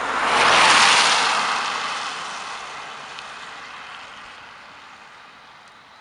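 A car passing close by and driving away, its tyre and engine noise peaking about a second in and then fading steadily.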